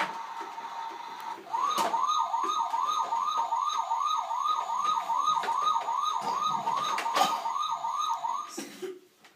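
Battery-powered toy truck's electronic siren: a fast, repeating rising wail, about two and a half sweeps a second, playing for about seven seconds and then cutting off. Before it starts, a steady electronic tone sounds.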